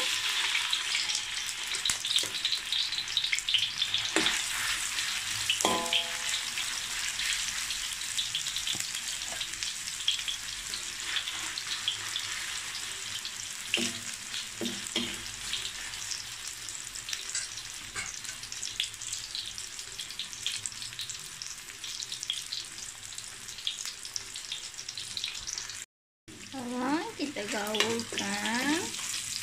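Soya nuggets sizzling and crackling as they fry in hot oil in a wok. A metal spoon stirs them, clinking and scraping on the pan a few times, one clink ringing briefly. The sizzle cuts out for a moment near the end.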